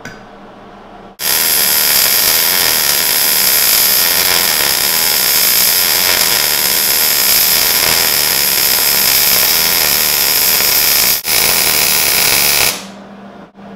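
Arc welding a bead along the outer seam of a steel saddle bracket: a loud, steady hiss that starts about a second in, breaks off briefly near the end, then resumes and stops about a second before the end.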